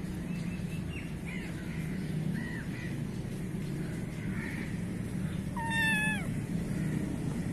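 Young black-and-white kitten meowing: one high mew about six seconds in that falls in pitch at its end, after a few fainter short calls, over a steady low background hum.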